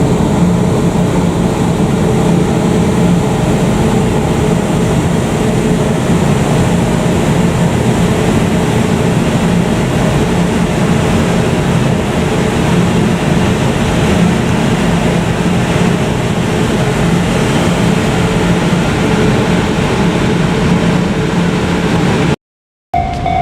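JR Freight EF510 electric freight locomotive running close by: a loud, steady hum with a low drone and a rushing noise that holds without letup. About a second before the end it cuts off briefly, and a steady higher tone takes over.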